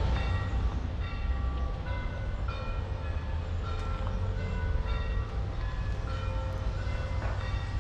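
Birds chirping in short, scattered notes over a steady low rumble.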